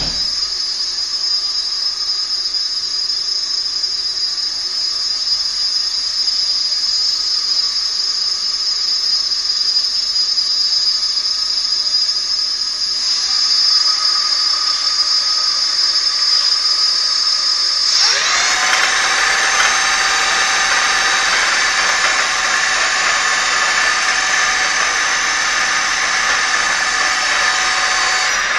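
Electric scooter's brushless DC motor driven by a 144-volt BLDC controller, giving a steady high-pitched electronic whine. About 18 seconds in, the whine sweeps quickly up in pitch and settles into a fuller steady whine as the motor speeds up.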